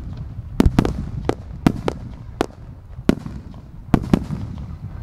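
Aerial firework shells bursting in quick, uneven succession, about ten sharp bangs over a continuous low rumble of echoing reports.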